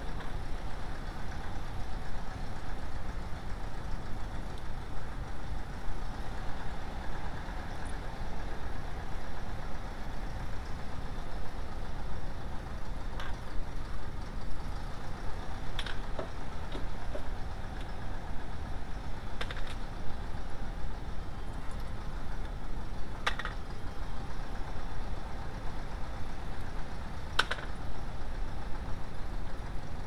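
A steady rumbling background noise, with about five light, sharp clicks a few seconds apart in the second half as small metal parts are handled on a steel workbench.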